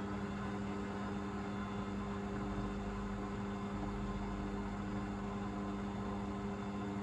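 Hoover VisionDynamic washing machine's drain pump humming steadily as it pumps out the wash water.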